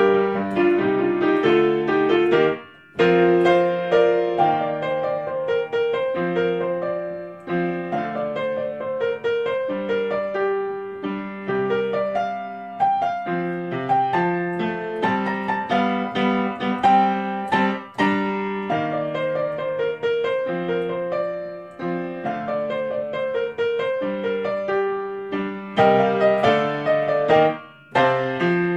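Background piano music: a steady run of light, quick notes.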